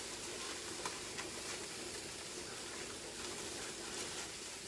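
Spring onions and garlic frying in olive oil in a steel pan: a steady sizzle with a few faint crackles.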